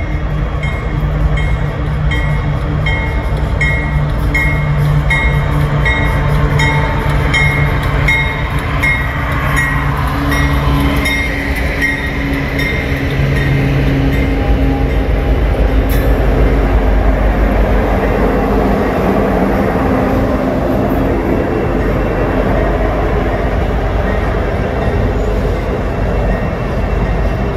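Loaded freight train passing. For the first twelve seconds or so the diesel locomotives' engines run with a deep hum while a bell rings steadily, about one and a half strokes a second. The bell then fades, and the loaded rock gondolas roll by with a steady rumble and clatter of wheels on rail.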